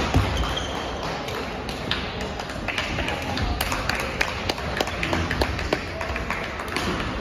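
Badminton play: scattered sharp taps of rackets hitting shuttlecocks, with footwork on the court, over the steady background noise of a busy hall. The taps come thickest about three to four seconds in.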